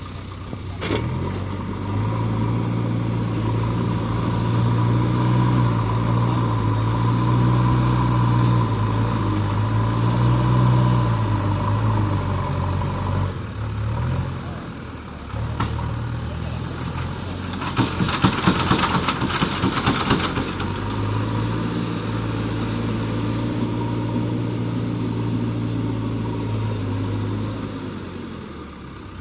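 JCB backhoe loader's diesel engine running under load, its pitch sagging and recovering as the hydraulics are worked, a load check after repair. About 18 seconds in there is a burst of rapid rattling for a couple of seconds.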